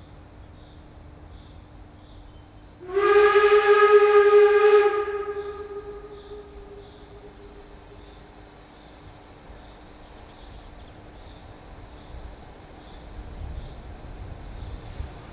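A narrow-gauge steam locomotive's whistle gives one loud, steady blast about two seconds long, starting about three seconds in, and echoes away afterwards. Near the end a low rumble grows as the train comes closer.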